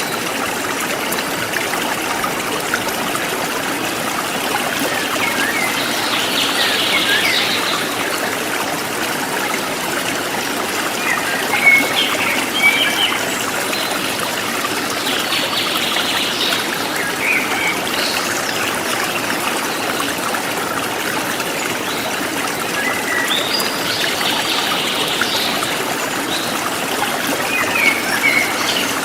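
Forest stream trickling steadily, with birds chirping briefly every few seconds over the water.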